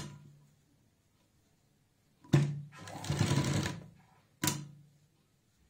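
Sewing machine stitching in short runs: a sharp start about two seconds in, then about a second of stitching, and another brief start-and-stop a little after four seconds. It is stitching fabric loops onto a neckline along the piping seam, a few stitches at a time.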